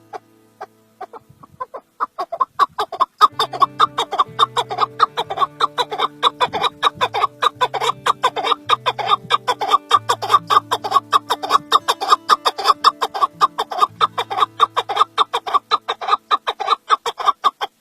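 Male chukar partridge calling, a rapid run of short repeated clucking notes that starts about two seconds in and grows louder, over background music with held low notes.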